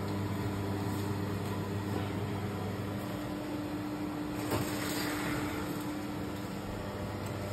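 Steady hum of a kitchen fan motor. About halfway through there is a single metallic knock as the oven rack is pulled out.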